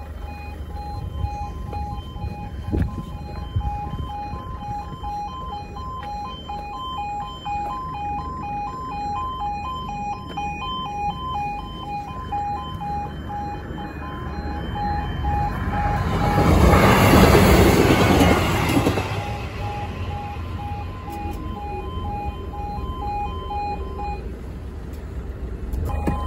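E2S Yodalarm level crossing alarm sounding a rapid two-tone warble. About sixteen seconds in, a train rushes over the crossing, loudest for about three seconds and drowning the alarm, and the alarm stops near the end.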